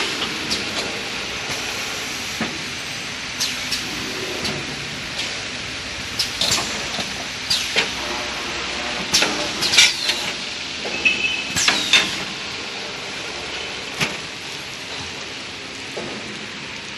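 XY AI 653D toilet paper bundle packing machine running, with a steady machine hiss broken by irregular clacks and short hisses from its pneumatic cylinders as it pushes and seals a nine-roll bundle. The clacks come thickest in the middle stretch.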